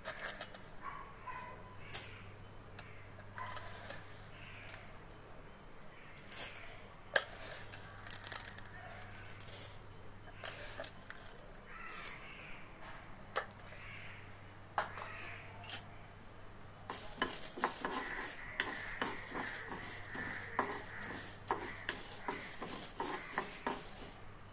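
Fenugreek and mustard seeds dry-roasting in a non-stick kadai, with scattered clicks and clinks. About two-thirds of the way in, a steel spoon starts stirring, and the seeds rattle and scrape against the pan in a dense run of rapid clicks.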